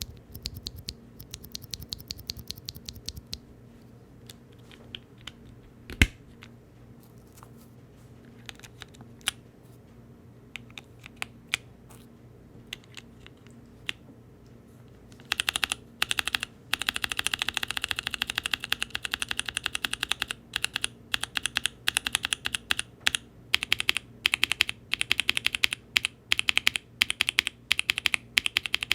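Mechanical keyboard typing on a Mode Eighty with NK Blueberry tactile switches in an aluminum plate, under GMK keycaps. Scattered keystrokes and one louder thump about six seconds in, then fast, continuous typing from about halfway through.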